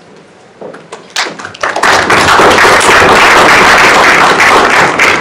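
Audience applauding: a few scattered claps about a second in, quickly building into full, steady applause.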